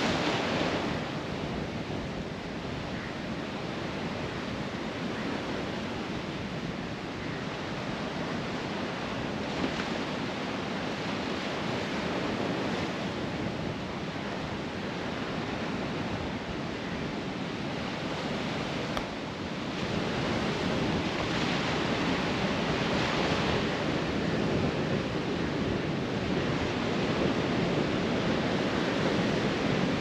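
Ocean surf breaking on rocks and washing up a sandy beach, a continuous rushing hiss that swells and ebbs with each wave. It grows louder about two-thirds of the way in.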